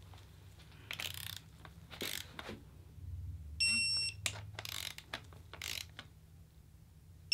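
Electronic torque wrench beeping for about half a second, about three and a half seconds in, as a camshaft cap bolt reaches its set torque. A second beep starts right at the end. Short ratchet clicks and metal clicks come from the wrench between the beeps.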